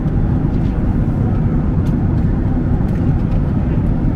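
Boeing 767-300ER airliner cabin noise in flight: a steady low rush of engines and airflow, with a few faint clicks.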